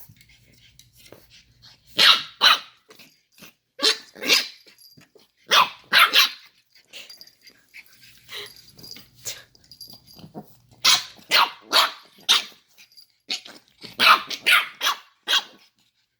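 Puppies barking at play, the barks coming in quick clusters of two or three with short pauses between.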